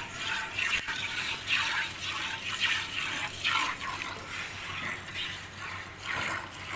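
Cow being milked by hand into a steel bucket: squirts of milk from alternating teats hiss into the froth in the pail, about two a second.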